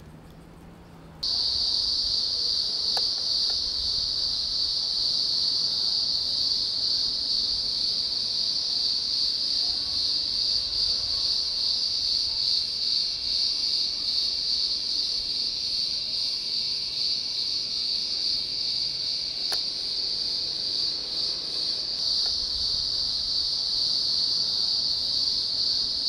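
Cicadas singing: a steady, shrill, unbroken buzz that starts abruptly about a second in and holds at one pitch.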